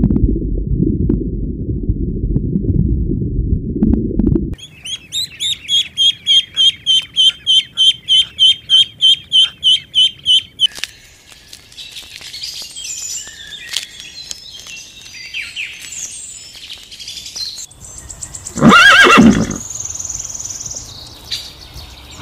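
A run of separate animal sounds. First comes a low rumbling noise for about four seconds. Then a fast, even series of high chirps, about four a second, gives way to scattered chirping. Near the end a horse gives one loud whinny.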